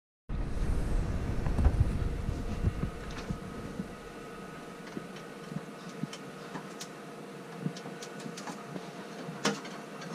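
Hands working plastic water-maker filter housings and pipe fittings: scattered clicks and knocks, heavier bumping in the first couple of seconds, over a steady faint hum.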